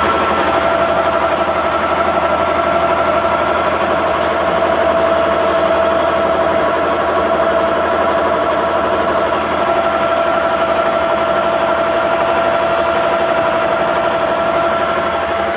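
Komatsu bulldozer's Cummins N855 diesel engine running steadily, with a steady high whine over the engine noise.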